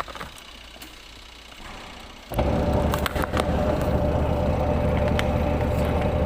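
A few light clicks, then a washing machine's wash motor starts suddenly about two seconds in and runs with a loud, steady hum. The machine is running on its newly replaced timer.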